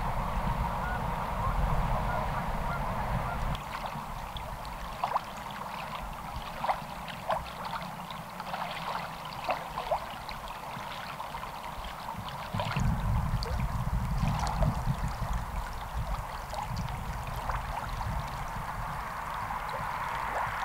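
Waterfowl calling in many short calls, mostly in the middle stretch, over a low rumble of wind on the microphone that grows louder about two-thirds of the way through.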